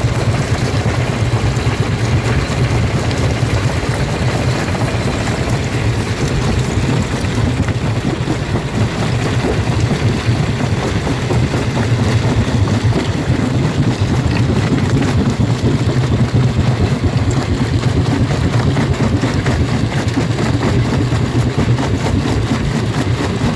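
Jaw rock crusher running steadily: a loud, low drone with a continuous uneven clatter as stone is crushed.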